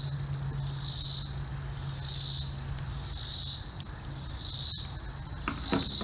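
Insects calling: a high-pitched pulsing chorus that repeats about once a second, each pulse under half a second long, over a steady, even higher insect drone.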